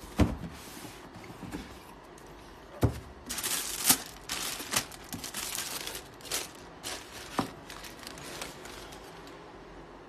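A cardboard shoebox being opened by hand: two knocks of cardboard, one near the start and one about three seconds in, then tissue paper rustling and crinkling as the sneakers inside are unwrapped and handled.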